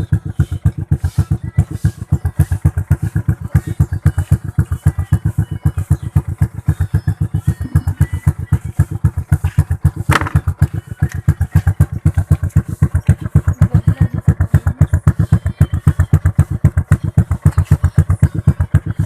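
Honda XRM 125's single-cylinder four-stroke engine idling steadily through an aftermarket 'daeng pipe' muffler exhaust, with an even, rapid putt-putt of exhaust pulses. There is one brief sharp click about ten seconds in.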